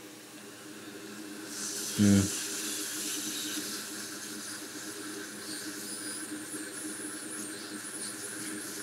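Hot air rework station blowing a steady hiss with a faint high whine, starting about a second and a half in; a short grunt about two seconds in.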